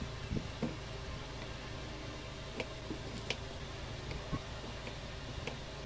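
A kitchen knife cutting calamansi on a bamboo cutting board: a few scattered short taps and knocks of the blade and fruit on the wood, over a steady low hum.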